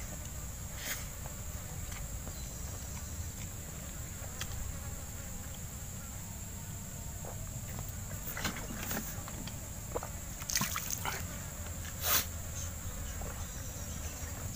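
A steady high-pitched insect drone, with a low rumble beneath it. A few short rustles and clicks from a hand eating off a banana leaf, the loudest about twelve seconds in.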